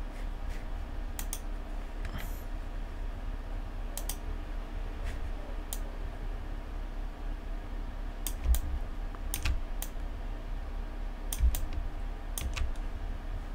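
Scattered clicks and key presses on a computer keyboard and mouse, at an uneven pace with a few louder clicks, over a steady low hum.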